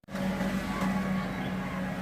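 Hydraulic excavator's diesel engine running at a steady pitch.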